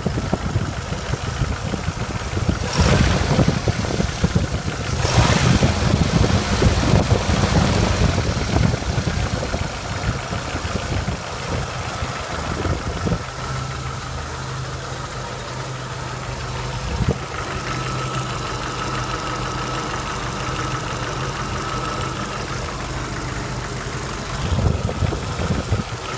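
1993 Jeep Wrangler YJ's 2.5-litre four-cylinder engine running. It is louder and rougher for the first ten seconds or so, then settles into a steady idle. It carries a lifter noise that the owner thinks comes from worn lifters, though he could be wrong.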